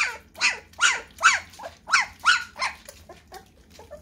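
Young puppies, almost three weeks old, crying in a quick series of short yelps, about two to three a second, each falling in pitch; the cries grow fainter near the end.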